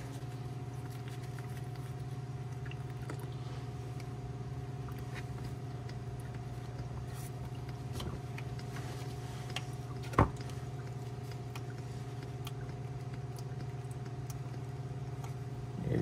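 A steady low hum runs throughout, with faint scattered ticks as old manual-transmission fluid streams from the gearbox into a drain pan, and one sharp click about ten seconds in.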